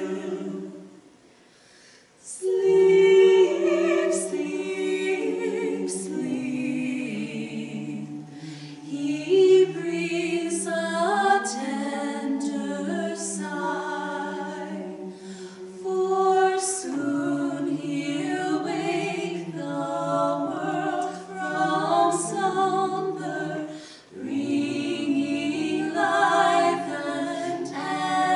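Mixed vocal quartet, two men and two women, singing a cappella in close harmony, with a short break between phrases about a second in before the voices come back together.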